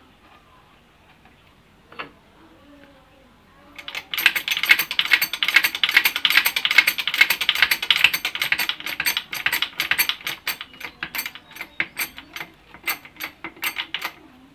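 Rapid metallic clicking from a hand-operated screw press being wound down onto a steel sleeve in a rebuilt ball-joint housing. It starts about four seconds in and thins to separate clicks near the end.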